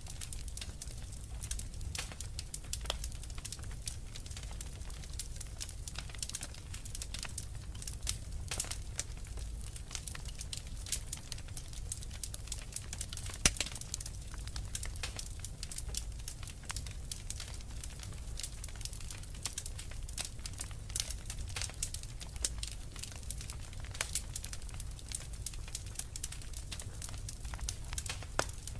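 Wood fire crackling, with frequent sharp pops and snaps over a steady low rumble. The loudest pop comes about halfway through.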